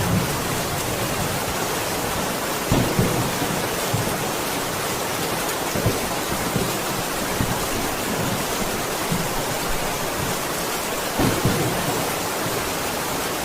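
Steady rain, an even dense hiss, with a few short low thumps scattered through it.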